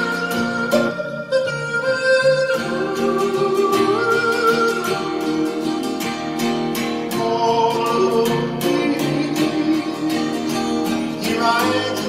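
Strummed small acoustic string instrument accompanying a man's wordless yodel-style singing. The voice holds long notes and slides up between them over steady strumming.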